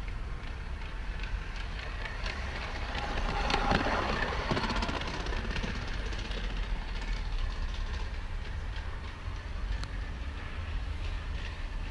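Garden-scale model train running on outdoor track, its wheels clicking over the rail joints, loudest a few seconds in.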